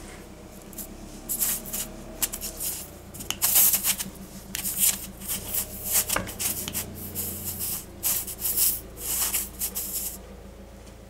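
Hand tool worked back and forth in the puncture of a small rubber garden cart tyre, scraping and rubbing in irregular bursts that stop about a second before the end, while preparing the hole for a vulcanising repair strip.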